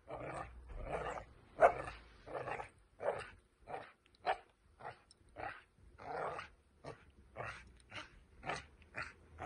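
Five-month-old puppy barking and yipping over and over in short bursts, about two a second: a frustrated bark while it wants the toy.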